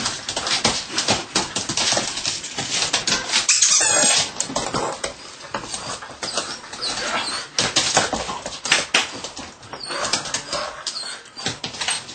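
A Belgian Malinois puppy at rough play on a wooden floor: a busy, uneven run of scuffles, clicks and knocks, loudest about three to four seconds in.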